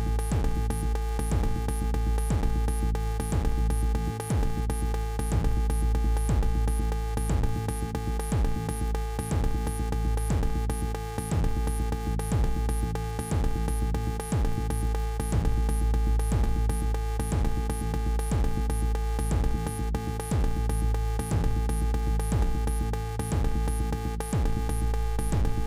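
Live-coded electronic music: a loud, deep, steady bass under held steady tones, with repeated falling-pitch kick-like hits and an even, rapid ticking pattern high up.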